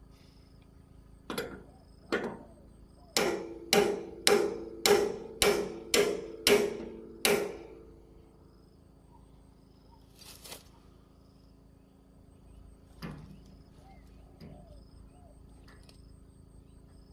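Hammer striking metal: two blows, then a run of nine quick blows at about two a second, each ringing briefly.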